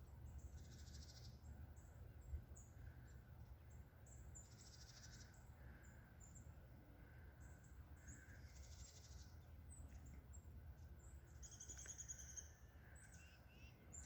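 Faint chirps and calls of small wild birds, scattered short high notes throughout, with a clearer run of high pitched notes about twelve seconds in, over a low steady rumble.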